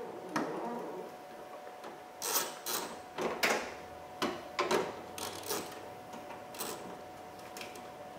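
Hand ratchet with a 7 mm socket backing out a headlight-assembly mounting bolt, its pawl clicking in a series of short rasping strokes, about ten of them, starting about two seconds in.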